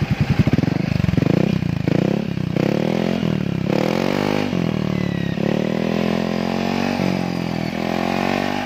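Yamaha XMAX 250 scooter's single-cylinder four-stroke engine running through an aftermarket muffler. It is revved in about four short throttle blips, then held at higher revs. The muffler has a newly made baffle, without the earlier water-pipe insert, built to tame a loud, tinny exhaust note.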